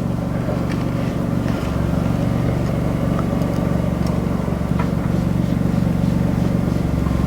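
A steady mechanical hum with an even, unchanging low pitch and a few faint clicks over it; it cuts off suddenly at the end.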